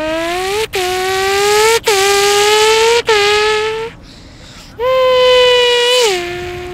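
A boy imitating a Kawasaki Ninja H2R superbike with his voice: a rising engine-like hum that breaks off briefly three times, like gear changes, and levels out. After a short pause comes a second held note that steps down in pitch near the end.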